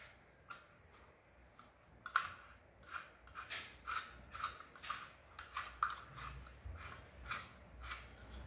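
Stainless steel kitchen press (murukku maker) being handled: a run of small metallic clicks and scrapes, about two a second, starting around two seconds in.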